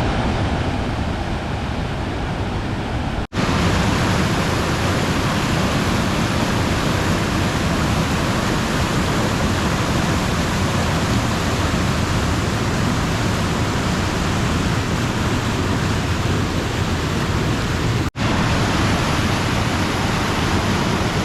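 Waterfall: a steady, full rush of falling water. It cuts out for an instant twice, about 3 seconds in and about 18 seconds in.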